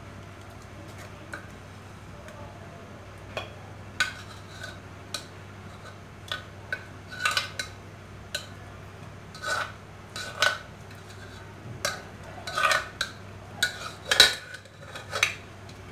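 Steel ladle clinking and scraping against an aluminium saucepan and the rim of a steel kadai as cooked mixed dal is scraped out of the pan into a curry. Irregular clinks start a few seconds in and come more often in the second half, over a steady low hum.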